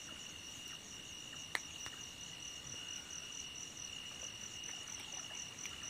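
Crickets trilling in a steady night chorus, two high unbroken tones, with one faint click about a second and a half in.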